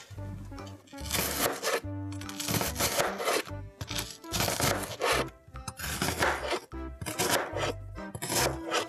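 Background music with a steady beat, over a chef's knife slicing down through a halved onion onto a cutting board in short, uneven strokes.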